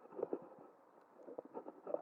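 Several faint, dull knocks and clunks in irregular succession, from something being handled.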